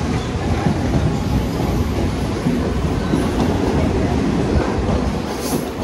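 Mumbai suburban local train running along the track, a loud, steady rumble of coach and wheels heard from on board.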